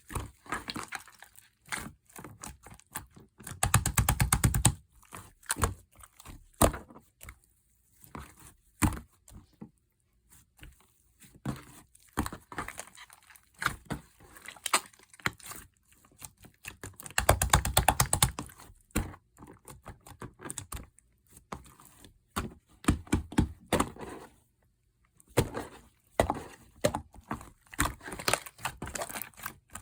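Hands squishing and kneading a soft pudding slime, giving irregular sticky pops and clicks. There are two longer runs of rapid crackling pops, about four seconds in and again about seventeen seconds in.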